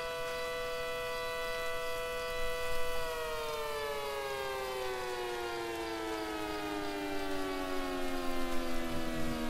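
Synthesized Federal Signal SD-10B dual-tone siren sounding a steady two-note chord. About three seconds in it begins to wind down, its pitch falling slowly and evenly: the end of the steady alert signal.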